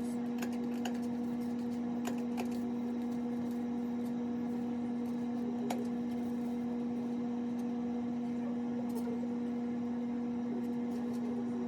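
A steady electrical or appliance hum, with a few light clicks and taps scattered through it.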